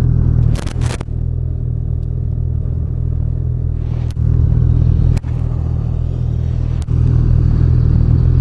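Snowmobile engine idling steadily, with a few sharp clicks over it. A hiss joins in about four seconds in.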